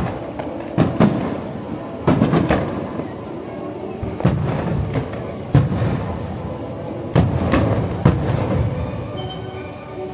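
Aerial fireworks shells bursting, a string of sharp bangs every second or two with a rumbling echo after each, over music played with the show.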